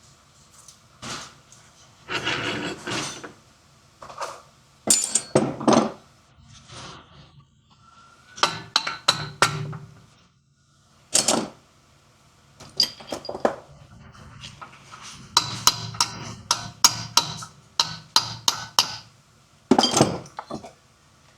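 Hand tools knocking and clanking against metal car parts in irregular clusters of quick strikes, some ringing briefly, separated by short pauses.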